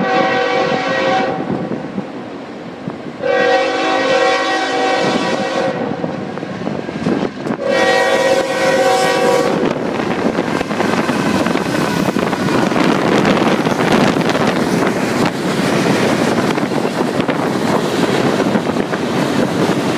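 Norfolk Southern diesel freight locomotive's air horn blowing for a grade crossing: a blast ending about a second in, then two long blasts of two to three seconds each. Then the steady rumble and clatter of the locomotive and freight cars rolling past.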